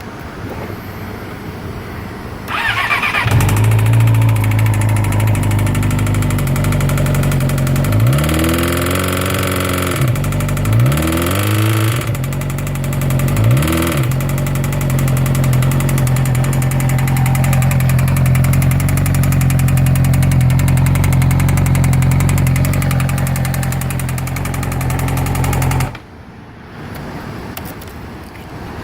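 2012 Yamaha R6 inline-four engine cranked on the starter and catching, revved briefly three times, then idling before it is shut off near the end. It runs with a knock that the owner says sounds like rod knock, feared to be a spun connecting rod bearing.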